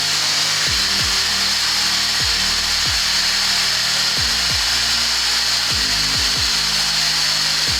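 Steady, loud rushing hiss of pressurised air from the compressor or blower holding a sewer pipe liner inflated while it stretches to the pipe's full size.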